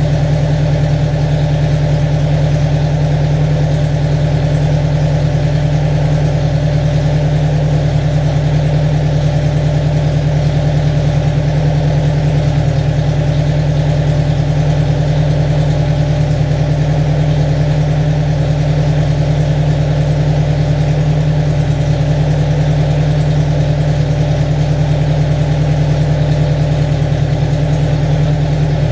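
Riley 12/4 four-cylinder engine, newly built and on its first start-up run, running at a steady speed with an even beat.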